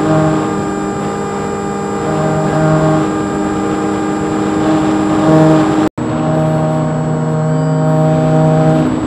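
HobbyKing Bixler RC plane's electric motor and pusher propeller droning at a steady throttle, heard from the onboard camera as a steady hum with several overtones. The sound cuts out for an instant a little past halfway.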